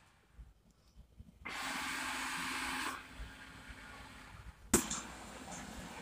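Eufy robot vacuum cleaner running: a steady whirring hiss from its suction motor and brushes. It starts after about a second and a half of near silence, is loudest for about a second and a half, then goes on fainter, with one sharp click a little before five seconds in.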